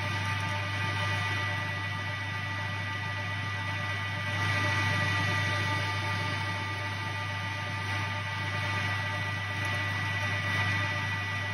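Metal-turning lathe running with a steady hum and a whine of several fixed tones from its drive, while the tool takes a fine cut on the workpiece's shoulder; the sound swells slightly about four seconds in.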